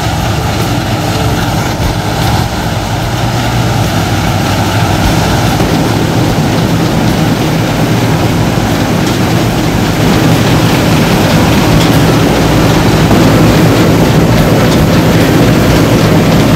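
Heavy harvest machinery engine running steadily with a low hum and mechanical clatter, growing gradually louder.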